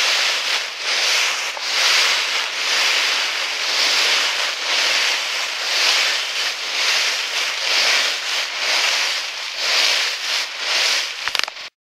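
Footsteps shuffling through a thick layer of dry fallen leaves: a loud rustling crunch that swells with each step, about one step a second. It cuts off abruptly near the end.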